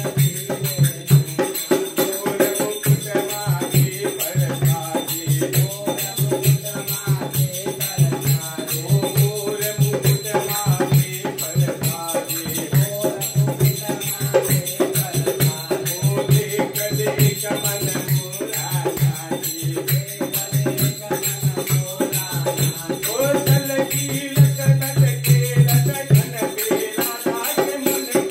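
Hindu devotional hymn (bhajan) sung to a steady fast rhythm of jingling hand percussion.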